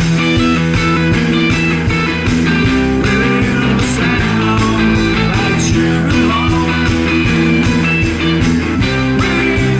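Instrumental psychedelic rock passage with electric guitar over bass and drums, with no singing.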